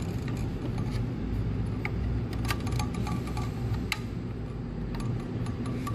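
Scattered light clicks and ticks of a hand screwdriver turning screws into the metal head plate of an oxygen-concentrator compressor, seating the new head seal, over a steady low hum.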